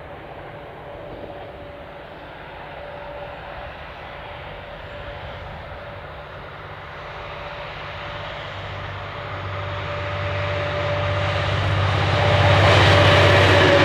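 V/Line N class diesel-electric locomotive hauling passenger carriages towards the listener. A steady engine drone and a constant whine grow louder, with a heavy low hum from about eight seconds in. The rumble of wheels on rail swells to its loudest as the locomotive draws level near the end.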